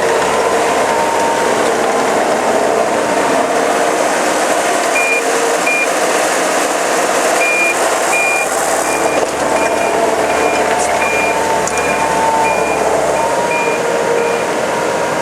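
Gehl CTL80 compact track loader's 97-horsepower diesel engine running steadily as the machine works. About five seconds in, its backup alarm starts beeping, a repeated high beep roughly every half second that stops near the end.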